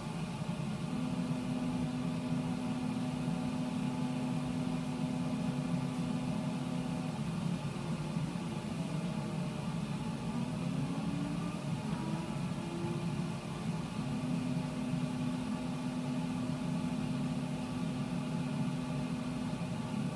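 Homemade CO2 laser cutter running while cutting 1/4-inch acrylic: a steady low hum, with a held steady motor tone that gives way in the middle to several rising and falling gliding tones as the head moves, then returns steady near the end.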